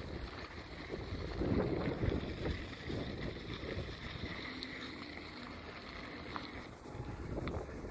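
Wind buffeting the microphone on a mountain bike ride, an uneven gusty rumble. A higher steady hiss underneath stops near the end, and there are a few faint ticks.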